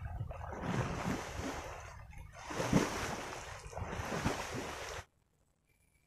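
Water splashing and sloshing in repeated surges, as from someone wading and beating through shallow weedy water, stopping abruptly about five seconds in.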